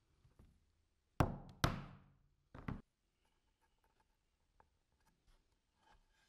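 A chisel chopping small wedges off a thin wood strip on a wooden workbench: two sharp knocks about half a second apart, a third about a second later, then faint small taps of handling.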